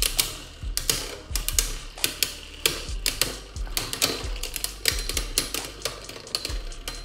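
Two Beyblade Burst spinning tops battling in a plastic stadium, with irregular rapid clicks and knocks as they strike each other and the stadium wall.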